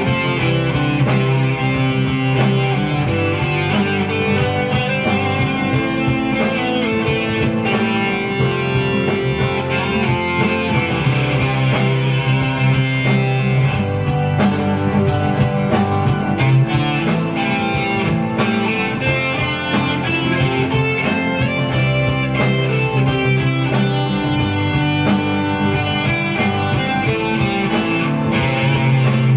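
Guitar playing continuously over long-held low bass notes: many quick plucked notes at a steady loudness.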